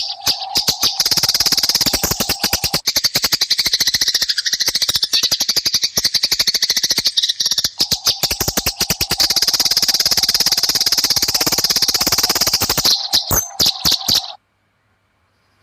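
Eurasian tree sparrows fighting: a loud, fast, dense chatter of short high chirps that cuts off suddenly about a second before the end.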